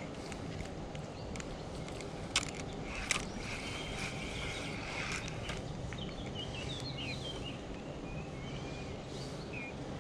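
Outdoor ambience with a steady low hum and faint bird chirps, broken by two sharp clicks a little over two and three seconds in.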